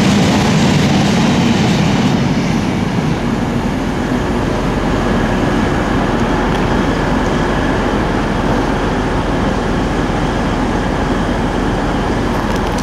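Loaded iron ore wagons rolling past, the sound easing about two to three seconds in as the end of the train goes by; after that a steady hum carries on from the Class 185 diesel multiple unit idling at the platform.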